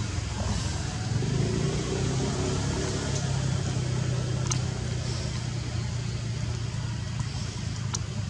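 A steady low drone with a light noise haze, with two faint sharp clicks, one about halfway through and one near the end.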